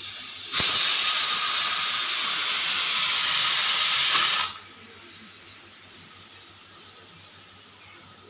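Pressure cooker whistle blowing off steam as the cooker reaches pressure: a loud, steady hiss that jumps louder about half a second in and cuts off abruptly about four and a half seconds in, leaving a faint, fading hiss.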